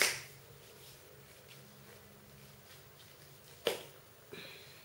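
Quiet handling sounds: a short rustle at the start, then a sharp click and a smaller one near the end as the cap of a small amber glass bottle is twisted open.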